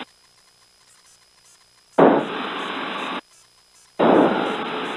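Two sudden bursts of noise through the aircraft's headset intercom, each a little over a second long, that start and stop sharply after about two seconds of near silence. This is the intercom's microphone gate opening on the cockpit's engine and wind noise without anyone speaking.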